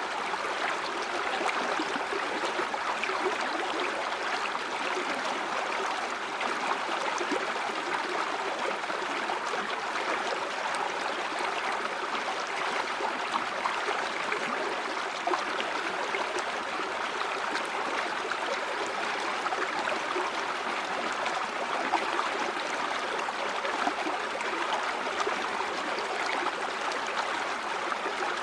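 River water flowing steadily over stones, a continuous babbling with small splashes and gurgles throughout.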